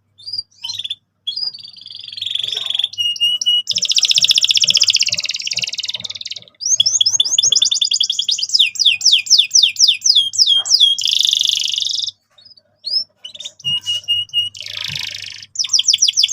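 Male domestic canary singing in full song: dense buzzy rolls, then a long run of fast repeated falling whistles at about five a second, a brief pause, and more rolls and whistles.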